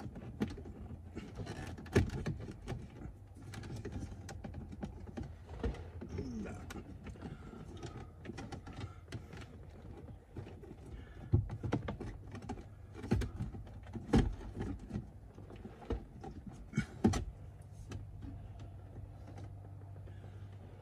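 Irregular clicks, knocks and plastic rattles as the instrument cluster of a BMW X5 E70 is pried and worked loose from the dashboard behind the steering wheel. A low steady hum lies underneath and grows stronger near the end.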